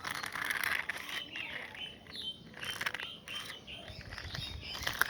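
Small birds chirping repeatedly in short rising and falling calls, with scattered clicks and a brief rush of noise in the first second.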